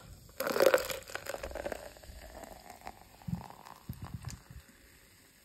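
Canned cola poured into a paper cup. It splashes in with a loud gush about half a second in, then fizzes and crackles as the foam rises, with a few soft low knocks near the middle.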